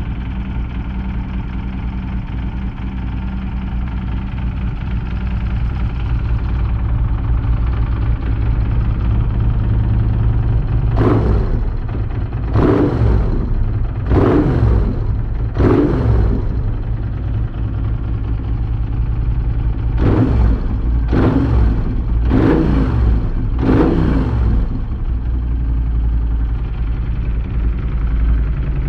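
Moto Guzzi V11's air-cooled 90-degree V-twin, fitted with a hot camshaft, idling and then blipped eight times in two sets of four, each rev falling straight back to idle. Fresh from its first start of the spring.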